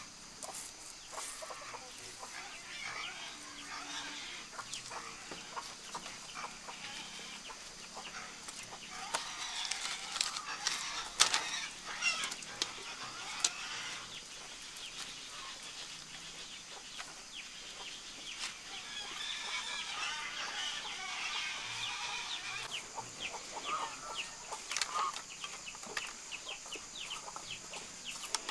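Chickens clucking, with scattered sharp clicks and clatter of split bamboo strips being handled and laid on the ground.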